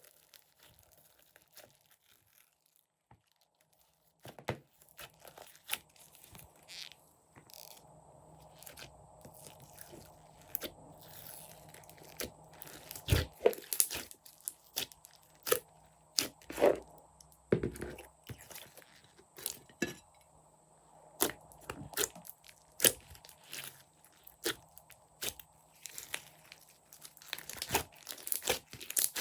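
Slime being mixed and squished by hand, giving irregular sticky clicks, pops and crackles that start about four seconds in and come thicker near the end.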